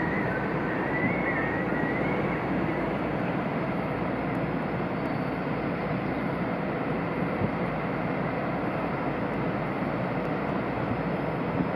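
Steady outdoor rumble with no distinct events, the kind of mixed wind and distant engine or traffic noise heard across a harbour. A faint wavering high tone sounds over the first two seconds or so.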